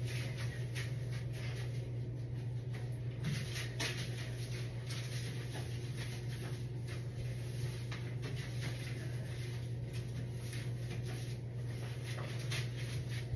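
Cleaning wipe rubbing in short strokes across glazed tile on a shower wall, over a steady low hum.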